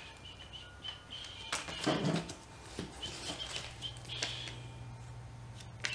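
Crinkling and rustling of clear plastic packaging pouches being handled, with scattered clicks. A brief voice-like sound comes about two seconds in.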